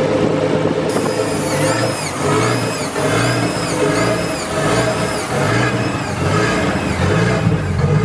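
Nissan RB25DET turbocharged straight-six running on its first start after an exhaust manifold gasket replacement, being revved.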